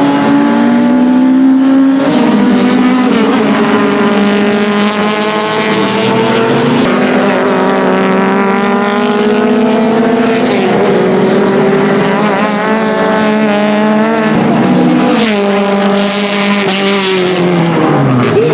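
BMW 2002 racing car's naturally aspirated four-cylinder engine running at high revs, its note held steady with a few brief dips. The pitch falls sharply near the end.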